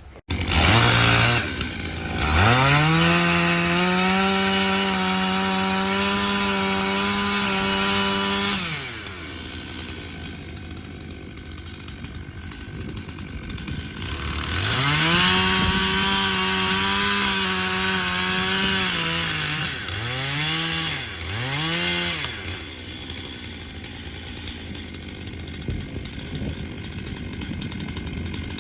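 Two-stroke chainsaw revving up to full throttle and holding it for about six seconds, dropping back to idle, then running at full throttle again for about five seconds, followed by two short blips of the throttle before it settles back to idle.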